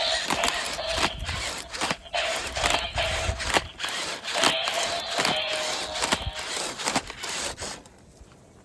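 Mini robotic dog toy going through an exercise routine: rapid mechanical clicking and whirring from its small motors, over a steady tone, stopping about eight seconds in.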